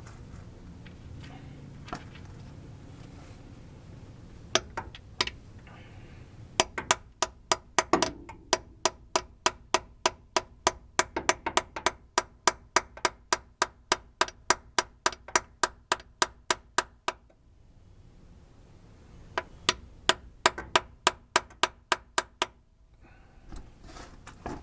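A hammer taps a seal-extractor tool into the old gear-shift seal of a TH350 transmission, driving it in so it can grip the seal. There are a few single taps at first, then a steady run of sharp strikes at about three a second for some ten seconds, a pause, and a shorter run near the end.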